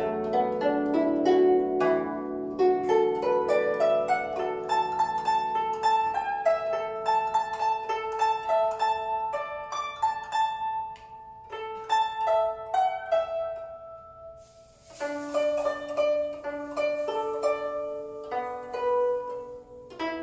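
Guzheng (Chinese zither) played solo: a running melody of quickly decaying plucked notes. It eases into a short lull about two-thirds of the way through, then picks up again.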